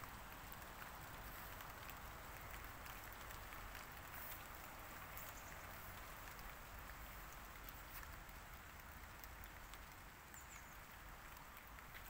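Faint outdoor garden ambience: a steady soft hiss with scattered faint ticks, and one brief high chirp about ten and a half seconds in.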